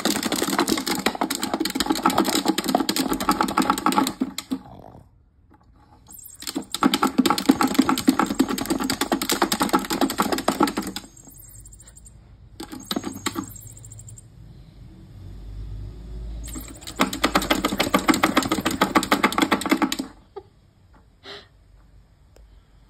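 Fast, dense clattering and scraping of a hollow plastic cat toy as a Boston Terrier digs at it with its paws. It comes in three long, loud bursts with short pauses between, and a few single clicks in the middle pause.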